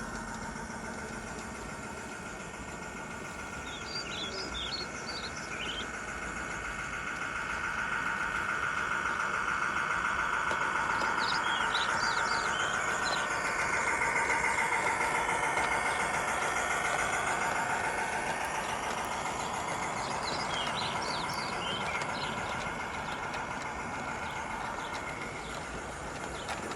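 Electric motors and gears of G-scale model diesel locomotives whining steadily as they haul a long train up a gradient, growing louder about eight seconds in and fading again as the train passes. Birds chirp briefly several times.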